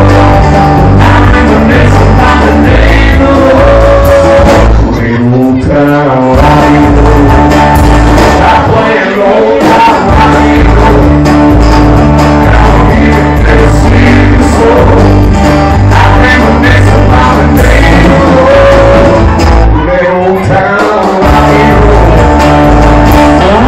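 A live rock and roll band playing loudly, with electric guitar, bass and drums.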